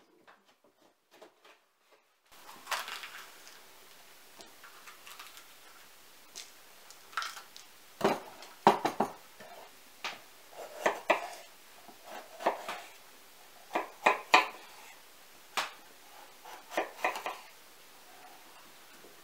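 Kitchen knife slicing a red bell pepper on a wooden cutting board: irregular sharp knocks of the blade meeting the board, starting about two seconds in, some coming in quick clusters.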